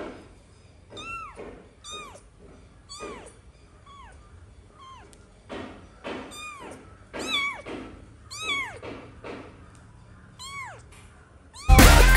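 A very young kitten mewing over and over: short, high-pitched mews that rise and fall in pitch, about one a second. Loud music cuts in near the end.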